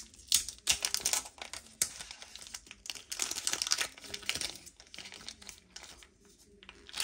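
Clear plastic protective film on a smartwatch crinkling and crackling as it is peeled and pulled off, the film stuck on firmly. Irregular crinkles, busiest around three to four seconds in, dying down near the end.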